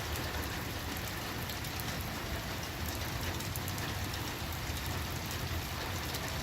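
Rain falling steadily, with a constant patter and scattered sharp drop ticks, over a steady low rumble.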